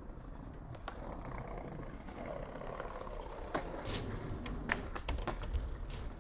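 Skateboard rolling over pavement: a steady wheel rumble broken by a few sharp clacks.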